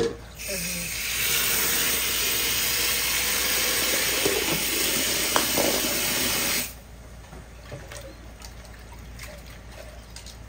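Water running hard from a tap, turned on about half a second in and shut off abruptly after about six seconds.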